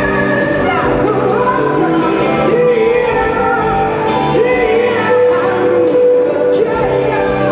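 A woman singing live with a jazz-pop band, her voice bending and wavering through the phrase and then holding one long note in the second half.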